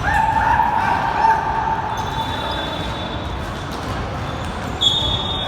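A basketball bouncing on an indoor court floor during a game, over gym noise. A long steady tone sounds for about the first two seconds, and a short high-pitched tone comes near the end.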